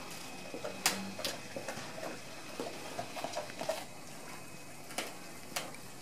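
Great Dane chewing a raw rabbit with the fur on: irregular wet crunching and cracking, with a sharp crack about a second in and two more near the end.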